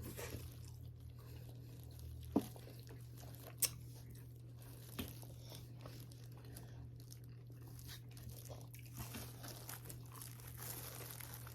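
Faint eating sounds: chewing of hotteok with a few small sharp crunches, about two and a half, three and a half and five seconds in, over a steady low hum.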